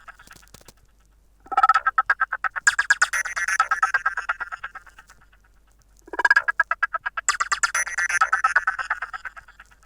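Fly FS458 Stratus 7 mobile phone ringtone playing: two phrases of a rapid, evenly pulsing trill, each about three to four seconds long, separated by short pauses.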